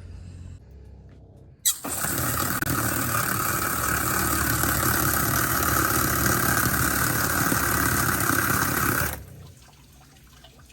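Salt water washdown pump switched on about two seconds in: it runs steadily with water rushing for about seven seconds, then cuts off suddenly.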